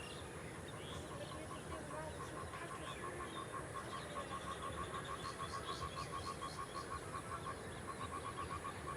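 Outdoor animal calls: a steady run of short pulsing calls, about five a second, with scattered bird chirps above them.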